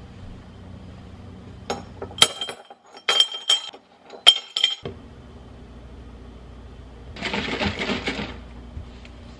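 Ice cubes dropped into a glass bottle: several sharp, ringing clinks in quick clusters from about two to five seconds in. Near the end, liquid is poured into the bottle for about a second.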